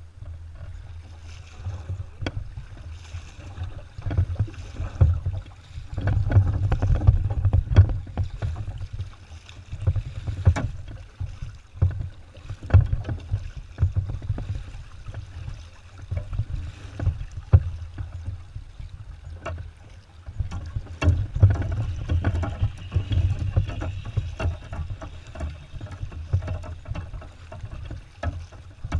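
Double-bladed paddle strokes and water sloshing along a kayak's hull, picked up through a camera mounted on the kayak, with irregular swells and sharp knocks every second or two over a steady low rumble.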